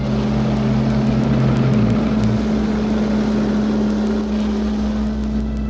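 Cartoon sound effect of military truck engines driving, a steady throbbing drone with a low pulse underneath. One of its tones drops out about two seconds in.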